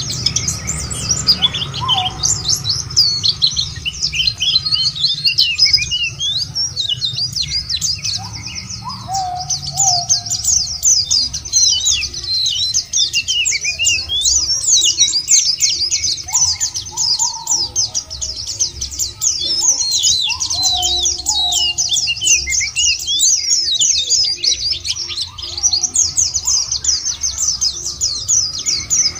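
White-eyes (pleci, Zosterops) twittering: a dense, continuous stream of rapid high chirps. Now and then there are short, lower whistled notes that glide down, from another bird.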